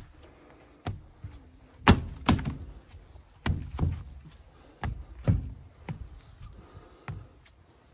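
Footsteps climbing wooden plank stairs: about ten loud, irregular thumps, some coming in quick pairs.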